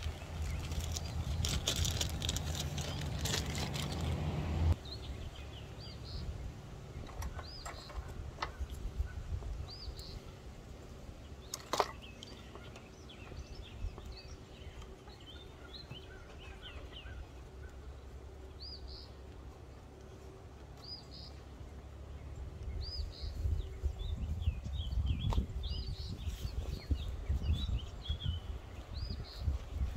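Small songbirds chirping, short high calls repeating every second or two. Underneath is a low rumbling noise that is loudest in the first five seconds, stops abruptly, and builds again near the end. There is a single sharp click about twelve seconds in.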